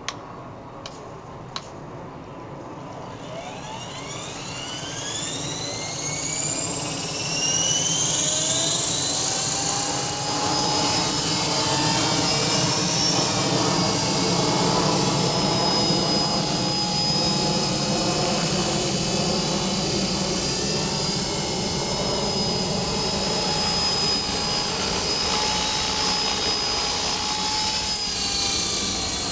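CopterX 450 SE electric RC helicopter spooling up: a few light clicks, then the motor and rotor whine rises in pitch over several seconds as the head speed builds. It then holds a steady high whine over a dense rotor noise while the helicopter flies.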